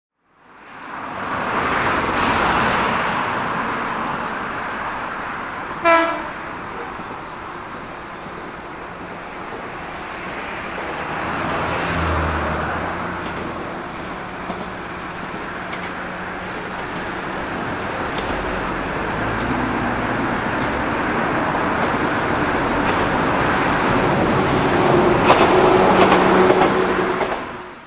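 Izukyu 100 series electric railcar KuMoHa 103 running along the line, with one short blast of its horn about six seconds in. The running noise of wheels and motors grows louder near the end as the car draws nearer.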